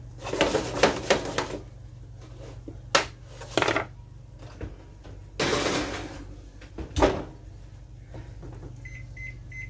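A metal spoon clattering and scraping roasted potato pieces on a metal baking sheet, then the sheet sliding into the oven and the oven door shutting with a bang about seven seconds in. A few short electronic beeps near the end as a timer is set.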